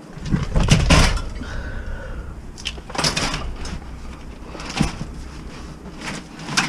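Bicycles clattering and knocking as one is pushed into a minivan's cargo area onto a pile of other bikes. The loudest clatter comes about a second in, and smaller knocks follow a few times.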